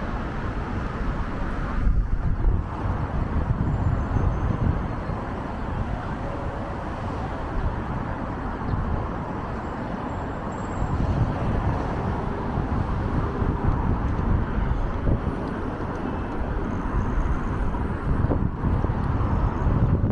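Steady city road traffic noise of passing cars, with a deep rumble and a few louder swells.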